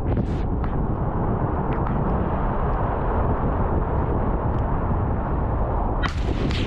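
Ute driving across a rough paddock, with engine and wind buffeting the microphone in a steady low rumble. A few brief sharp clicks early on, and a sudden sharp crack about six seconds in: a 12-gauge shotgun fired at a running pig.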